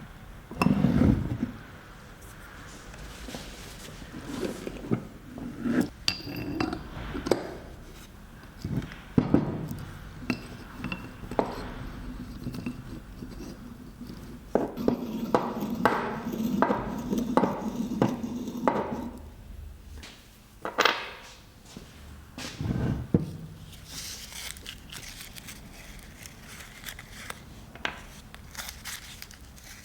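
Small metal parts and tools handled on a workbench: scattered clinks and knocks of metal on metal, with a run of about two regular clicks a second for several seconds in the middle.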